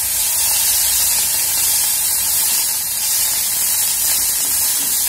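Thuthuvalai leaves just added to hot oil in a steel kadai, sizzling loudly and steadily as they fry.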